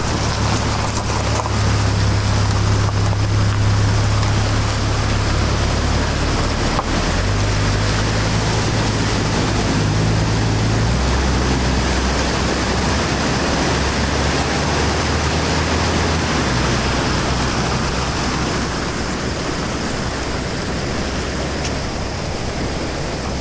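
Loud rushing of a swift, swollen river, running high and fast after heavy overnight rain, with an SUV's engine running at low revs underneath; the engine note steps to a new pitch a few times as the vehicle crosses.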